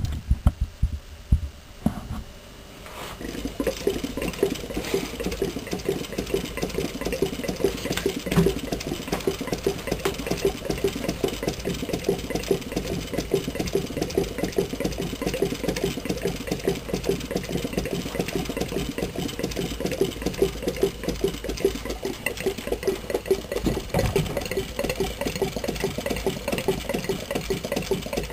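Model Rider hot-air engine running, its linkages giving a rapid, even mechanical clatter. A few separate knocks come in the first three seconds before the steady running sets in.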